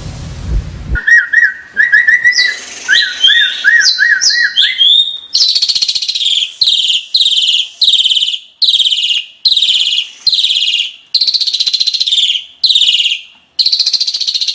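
Asian pied starling singing: a string of quick whistled up-and-down notes, then a long run of repeated scratchy phrases, about three every two seconds. Intro music ends about a second in.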